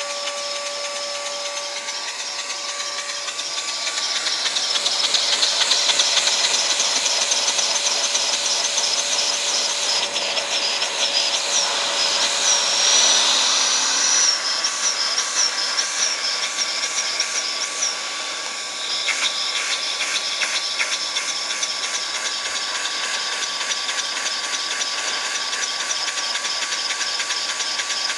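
Vacuum cleaner running, its suction drawing air through a Lego single-cylinder vacuum engine: a steady loud hiss with a motor whine that wavers in the middle. A rapid fine clatter from the running engine comes in over the latter part.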